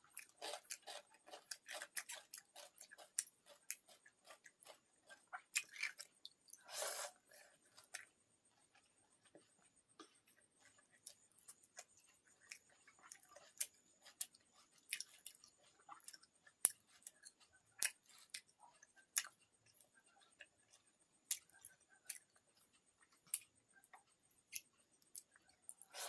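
Close-miked eating sounds from a meal of pakhala (watered rice) with side dishes: chewing and many short, sharp mouth clicks, busiest in the first few seconds. About seven seconds in there is one longer noisy sound.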